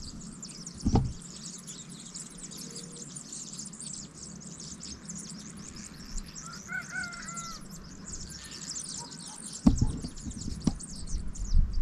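A dense chorus of many small birds chirping and twittering continuously, with a short run of lower calls about halfway through. A few dull thumps sound about a second in and again near the end.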